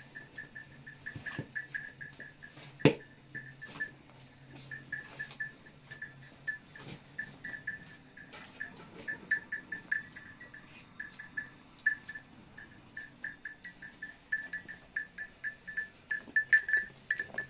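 Small livestock bells on a flock clinking irregularly at one bright pitch, with a single sharp knock about three seconds in.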